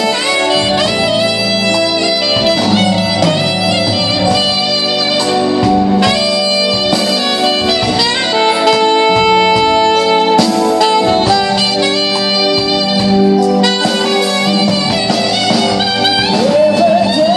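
Live band music led by an alto saxophone playing a slow, sustained melody over the ensemble. Near the end a woman's voice comes in singing.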